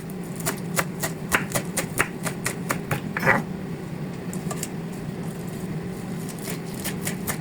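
Knife chopping kale leaves on a cutting board: a quick, even run of cuts at about four a second, thinning out in the middle and picking up again near the end.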